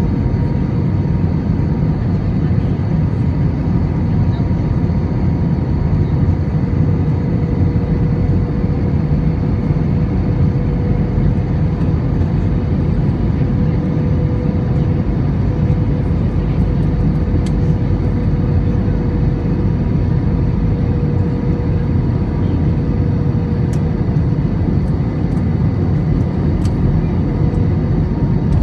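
Cabin noise inside an Airbus A321-200: a steady, loud rumble of engines and airflow with a constant engine whine over it. A few faint ticks come in the second half.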